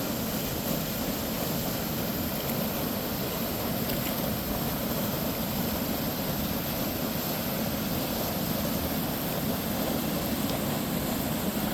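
Fast, rain-swollen creek water rushing steadily, a dense, even sound of strong current.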